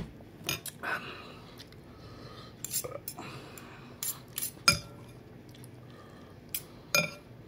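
Metal fork and spoon clinking against a glass bowl and against each other while lifting noodles out of soup: scattered sharp clinks, the loudest nearly five seconds in.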